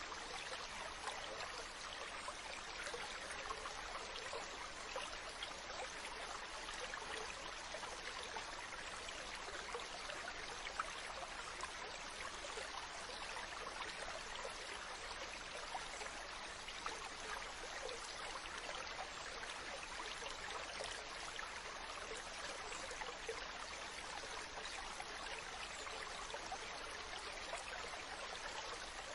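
Mountain stream running steadily over rocks, a continuous rush of water with fine splashing and trickling.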